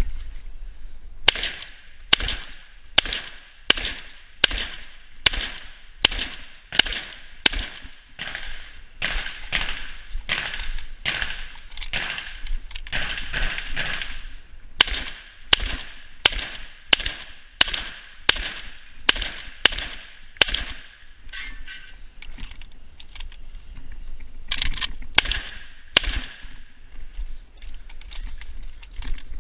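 Shotgun firing a rapid string of shots, about one to two a second, with a pause of a few seconds after about twenty seconds and then a few more shots.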